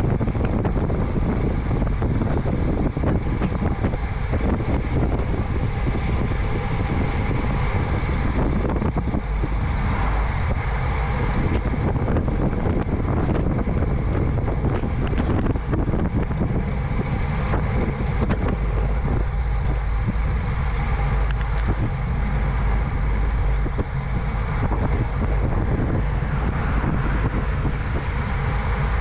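Steady wind rush on an action camera's microphone riding with a road bike at about 30 mph, heaviest in the low rumble and unbroken throughout.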